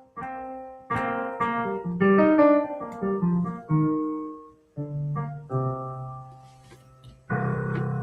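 Digital piano playing its felt upright piano sound: chords and short phrases, each note struck and then decaying, with a louder, fuller passage starting near the end.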